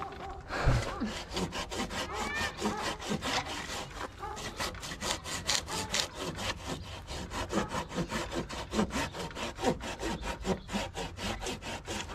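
Hand pruning saw cutting through a live tree trunk, with quick, even back-and-forth strokes of the blade rasping through wood that is not very dry.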